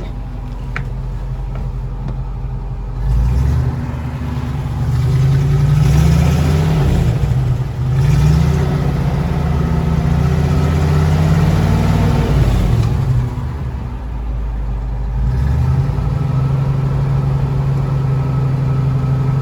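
1969 International Scout 800A engine running. Its speed rises and falls several times from about three seconds in until about thirteen seconds, dips briefly, then holds steady at a higher level near the end.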